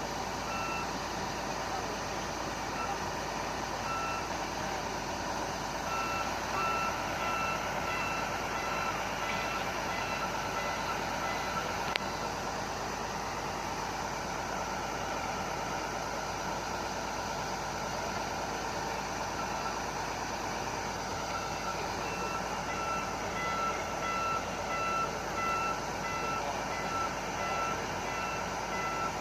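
Heavy machine's reversing alarm beeping steadily in runs, with a long gap in the middle, over a constant drone of heavy machinery. A single sharp click about halfway through.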